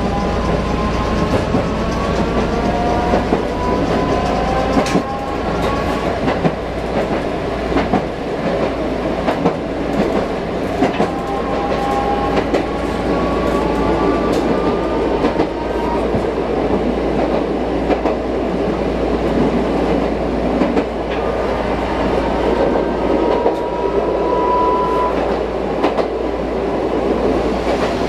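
Manyosen tram running along its track, heard from inside the car: steady running noise with wheels clicking over rail joints and a motor whine that rises in pitch three times as the tram picks up speed.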